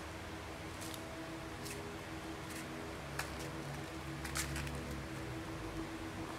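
Short crackles and rustles of plastic packing straps, cardboard and plastic sheeting as a kitten scampers and pounces on them, about five separate crinkles over a steady background hum.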